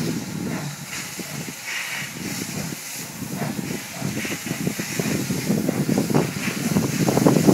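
SE&CR C class 0-6-0 steam locomotive No 592 working a train toward the listener: chuffing exhaust beats with hissing steam from around the cylinders, growing louder as it nears.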